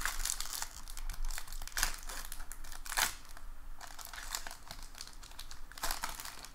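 Plastic wrapper of a 2019 Bowman baseball card pack being torn open and crinkled by hand: a string of irregular crackles, the sharpest near the start and a couple of seconds in.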